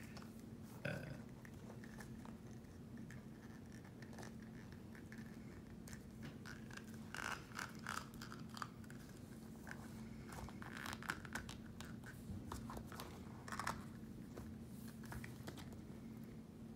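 Faint crinkling of plastic wrappers and small clicks of plastic toy pieces being handled, in scattered short bursts over a low steady hum.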